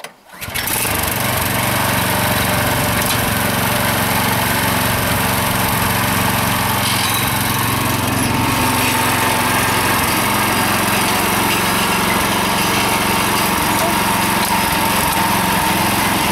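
Engine of an MB-2 walk-behind tractor catches about half a second in and runs steadily.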